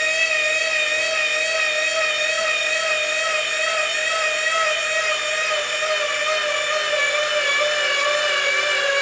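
12-volt electric linear actuator running with a steady whine as it slowly lifts a front-mounted snow plow blade.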